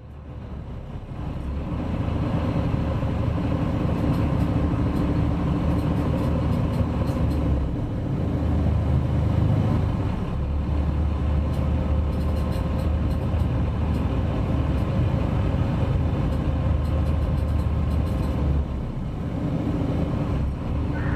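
Ferry's engines droning steadily, heard aboard the moving boat. The low hum swells up over the first couple of seconds and then holds.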